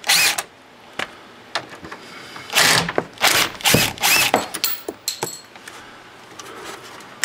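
Power drill-driver with a Torx bit running in short bursts, backing out screws: once right at the start, then several bursts between about two and a half and four and a half seconds in.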